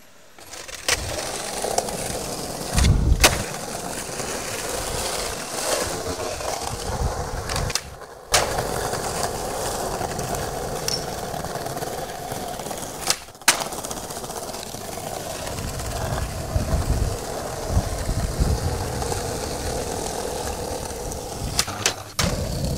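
Skateboard wheels rolling over paving stones, a steady grinding hum, broken now and then by sharp knocks of the board popping and landing, one with a heavy thud about three seconds in.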